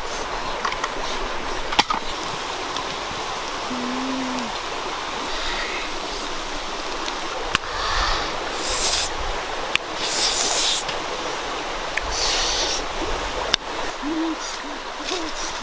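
Wood fire crackling under a grill, a steady hiss with occasional sharp pops. In the second half, a person chewing noisily close to the microphone, in three short bursts.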